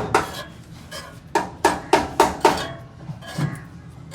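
Hammer blows on a car silencer's metal shell: a run of five quick strikes starting about a second in, about three a second, with a softer knock before and after.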